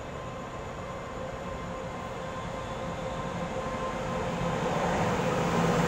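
Taiwan Railway EMU500 electric multiple unit pulling out of the station and drawing nearer. Its running noise, with a faint steady whine, grows steadily louder.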